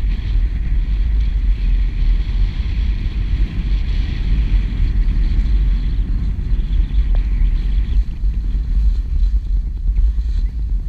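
Wind buffeting the microphone of a camera moving fast downhill on skis, a loud, steady, fluttering low rumble, with a fainter hiss of skis sliding on packed snow above it.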